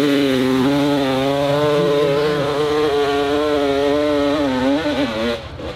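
Dirt bike engine held at high revs under load on a steep climb, its pitch wavering slightly with the throttle. The revs drop and wobble near the end before the sound cuts off suddenly.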